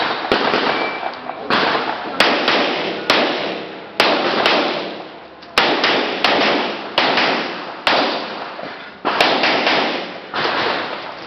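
Handgun shots during a practical pistol shooting stage: a string of about fifteen sharp reports, sometimes in quick pairs, with pauses as the shooter moves between positions. Each shot has a long echoing tail.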